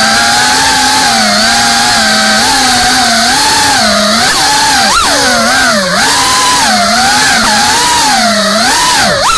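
FPV freestyle drone's motors and propellers buzzing loudly, the pitch constantly rising and falling with the throttle, with sharp quick swings in pitch about five seconds in and again near the end.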